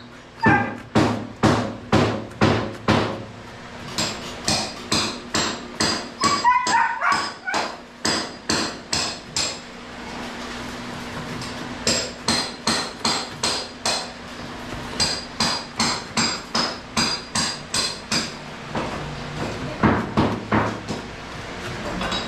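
Hammering on a building site: runs of hammer blows about two a second, each with a short metallic ring, broken by a few brief pauses.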